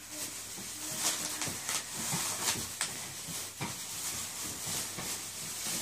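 Plastic carrier bag rustling as a hand rummages inside it, with many short irregular crackles.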